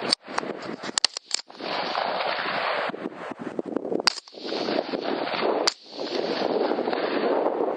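A string of sharp clicks and knocks, several close together in the first second or so and single ones at about four and six seconds in, over a steady rushing noise that drops out briefly twice.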